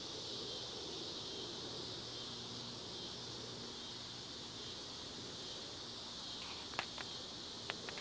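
A steady, high-pitched chorus of insects, with a faint low hum beneath. A few sharp clicks come near the end.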